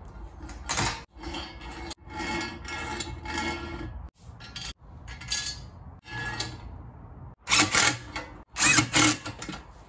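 Metal parts scraping and rubbing as threaded-bar spring spacers and their nuts are fitted to a mobility scooter's rear swing arm. The sound comes in several short stretches with abrupt cuts between them, and is loudest near the end.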